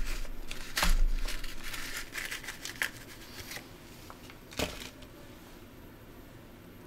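Rustling and crinkling of a small hook packet being opened and handled, with a sharp click about four and a half seconds in, then quiet.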